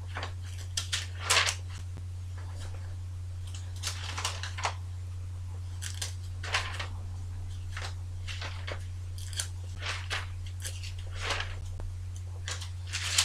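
Thin Bible pages being leafed through and turned by hand: a scattered series of short paper rustles and crinkles, over a steady low hum.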